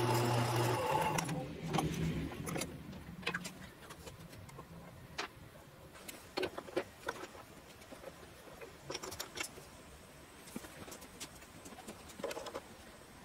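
Small metal lathe's motor running steadily, then switched off about a second in and spinning down over the next couple of seconds. After that come scattered light metallic clicks and clinks as the chuck and steel workpiece are handled.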